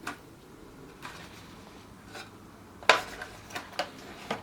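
Small hard objects clicking and knocking together: a sharp click at the start, faint ones about a second and two seconds in, the loudest knock about three seconds in, then a quick run of smaller clicks.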